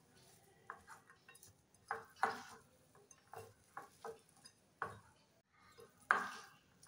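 A bare hand mixing moist shredded cabbage and ground spices in a ceramic bowl: faint, irregular rustles, scrapes and light knocks against the bowl, the loudest about two seconds in and again near the end.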